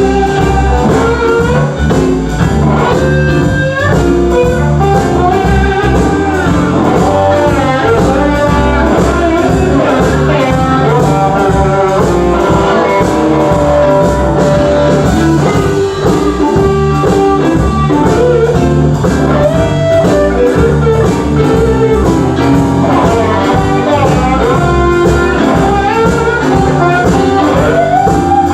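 Live band playing an instrumental stretch of a blues tune, with a guitar lead whose notes bend in pitch over a steady beat.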